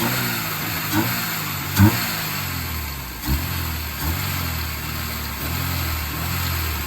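Honda F22 four-cylinder engine, flooded with water, catching on the starter and running unevenly, its pitch wavering, with a short knock roughly every second.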